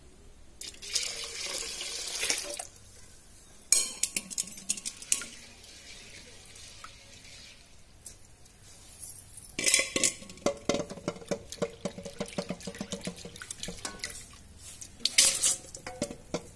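Soaked split urad dal being washed by hand in an aluminium pot: water swishing and splashing in several bursts, with many small clicks of the wet grains against the metal, as the black skins are rubbed off.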